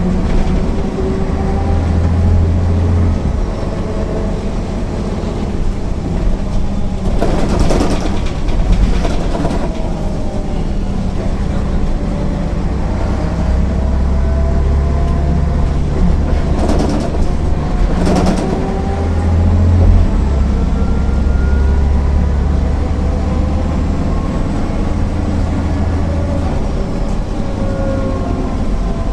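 MAN NL 262 city bus diesel engine and ZF automatic gearbox under way, the engine note climbing and dropping again and again as the bus pulls away and shifts through the gears. A brief rush of noise comes twice, about a third and about two-thirds of the way through.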